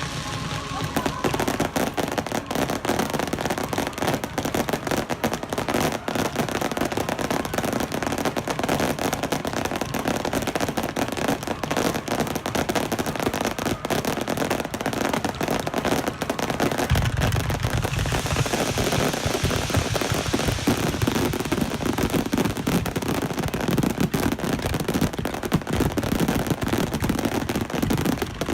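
Fireworks display recorded on a mobile phone: a dense, continuous run of rapid crackling reports from many shells. A deeper rumble of heavier bursts joins a little past halfway.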